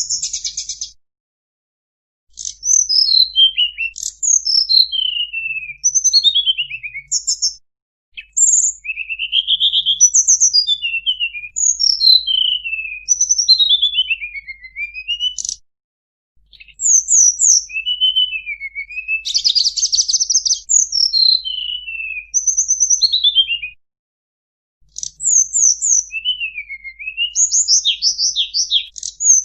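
Tledekan gunung songbird singing: repeated phrases of quick, high whistled notes that slide downward in pitch, some delivered as fast trills, with brief pauses between phrases.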